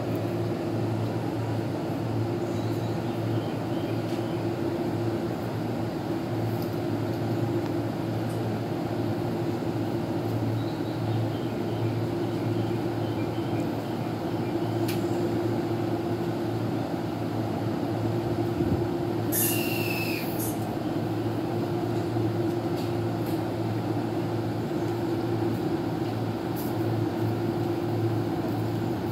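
Steady hum of a stationary electric commuter train standing at a station platform, its onboard equipment running. A short hiss cuts in about two-thirds of the way through.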